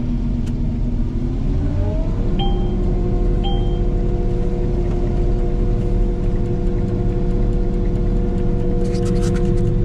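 Combine harvester running, its pitch rising over about a second as it throttles up, then holding a steady drone. Two short electronic beeps sound a second apart just after it settles.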